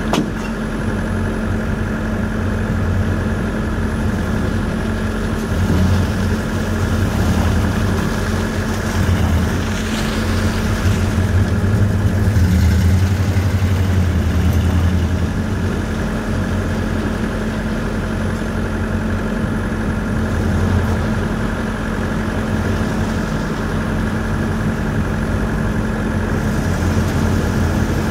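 2001 Dodge Ram 1500's 5.2-litre V8 running as the pickup drives slowly around. It is a steady low hum, loudest about halfway through when the truck is closest. The engine is listed as running rough.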